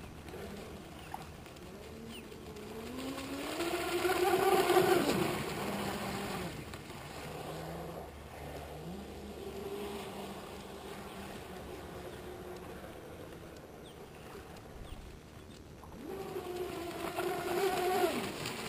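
RC speedboat fitted with a GrimRacer 42x55 copper-beryllium prop, running fast across the water. Its motor whine rises in pitch and grows loud about four seconds in, stays fainter and lower through the middle, then swells again near the end as the boat comes closer.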